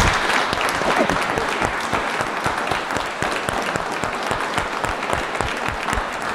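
A seated audience applauding steadily, many hands clapping in a dense patter that eases off slightly toward the end.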